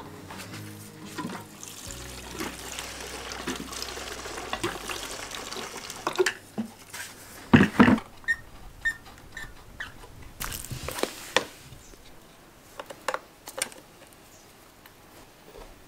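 Fuel being poured from a jerry can into a brushcutter's tank, a steady pouring hiss for about four seconds, followed by sharp knocks and clicks as the cap and machine are handled. Background music plays underneath.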